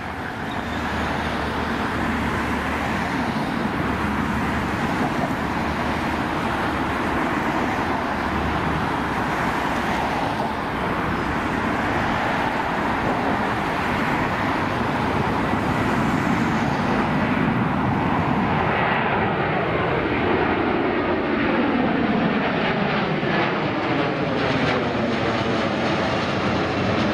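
Airbus A330-343's Rolls-Royce Trent 700 turbofans at takeoff thrust: loud, steady jet engine noise as the airliner rolls, lifts off and climbs. In the second half the noise grows a little louder and takes on a sweeping rise-and-fall in pitch as the jet passes overhead.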